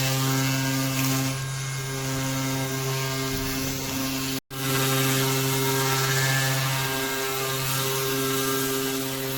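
An electric power tool motor running steadily, a humming whine over a hiss. The sound drops out abruptly for an instant about halfway through and then carries on.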